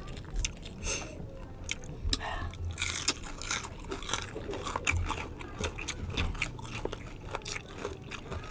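Crunching and chewing of crispy bagnet (deep-fried pork belly) skin, with crackles as pieces of the crisp skin are broken off by hand. The crunches are many, sharp and irregular.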